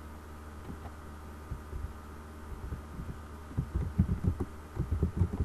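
Keystrokes on a computer keyboard, heard as short dull thumps: a few at first, then a quick dense run from about three and a half seconds in. A steady low hum lies underneath.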